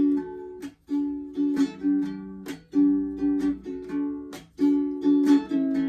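Ukulele strummed in a steady rhythm, chords ringing between sharp strokes, with no singing.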